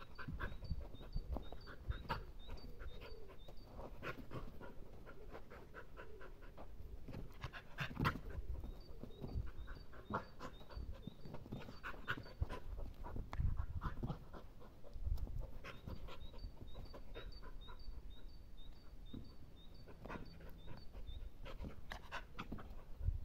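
Mixed-breed dog panting hard while jumping and playing with a ball, with scattered thuds and scuffs from its landings and the ball.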